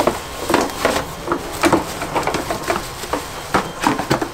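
Small hard parts being handled: an irregular run of clicks and knocks, several a second.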